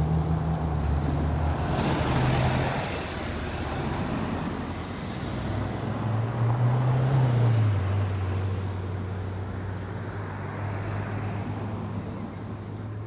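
A classic Ford Mustang fastback's engine rumbling as it drives off, fading within the first two seconds. About six seconds in, a Ferrari 488's twin-turbo V8 rises in pitch as it accelerates away, drops back and holds a steady note, with city traffic around it.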